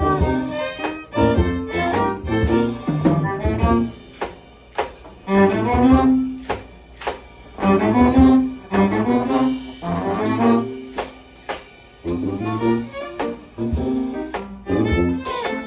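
Live jazz band playing an instrumental passage, with bowed violin to the fore over a low bass line, piano and percussion keeping a steady beat.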